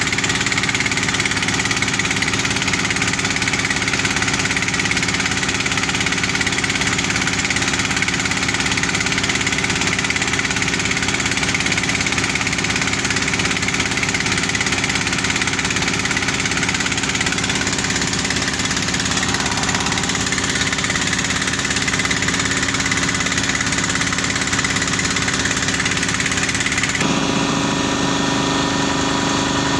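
Engines of a portable borehole drilling rig and its drilling-water pump running steadily while the bit drills. The sound changes abruptly about 27 seconds in.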